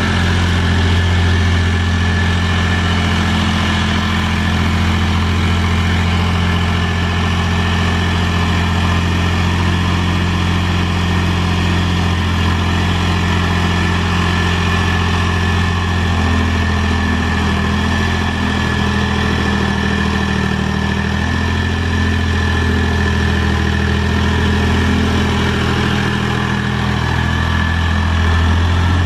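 Mahindra 3525 tractor's diesel engine running steadily while the tractor drags a box blade through loose dirt. The engine note shifts slightly about halfway through and firms up again near the end.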